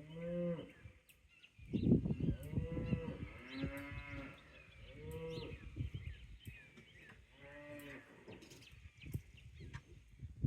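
Cattle mooing, several drawn-out calls one after another.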